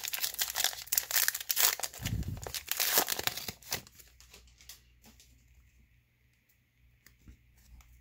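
The wrapper of a 2020 Bowman baseball card pack is torn open and crinkled by hand: a dense run of crackling for about four seconds, with a low bump about two seconds in. After that come only faint rustles and clicks as the cards are handled.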